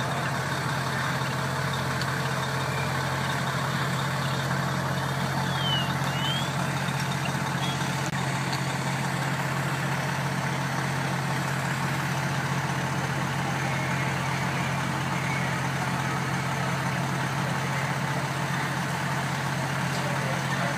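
Fire trucks' engines idling with a steady low drone.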